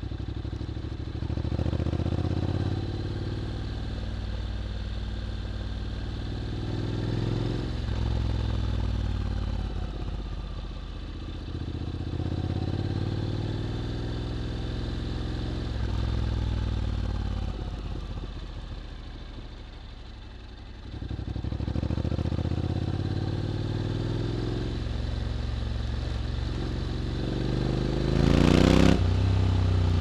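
Honda X-ADV 750's parallel-twin engine through an SC-Project titanium slip-on exhaust, accelerating in rising sweeps that drop back at each gear change. The engine eases off and goes quieter about twenty seconds in, then pulls again. A short, loud burst of noise comes near the end.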